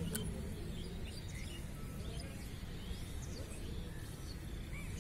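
Steady open-air background noise with faint, scattered bird chirps, and a single sharp click just after the start.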